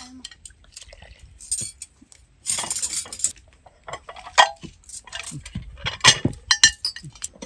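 Cutlery and dishes clinking: a run of sharp clinks and knocks of metal on plates, a short louder rattle about two and a half seconds in, and several ringing clinks near the end.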